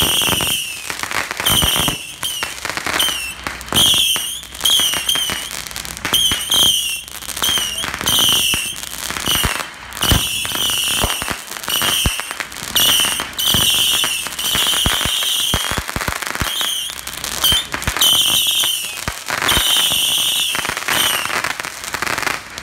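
Ground-launched consumer fireworks firing a rapid string of shrill whistling shots, about one a second, with sharp pops and crackling between them.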